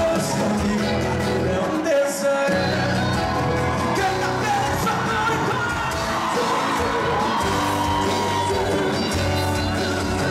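Sertanejo song performed live by a band, with a lead vocal singing over it; the bass and drums drop out briefly about two seconds in.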